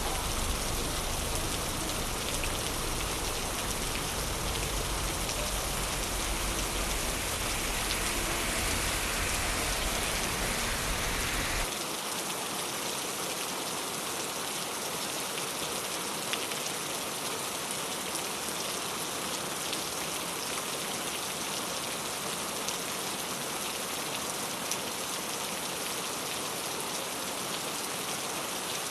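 Steady rain falling on a wet city street, an even hiss of drops. A low rumble underneath stops suddenly about twelve seconds in.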